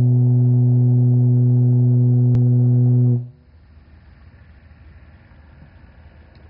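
Conch-shell horn (caragola) blown in one long, steady low note that cuts off a little over three seconds in, leaving only faint background noise.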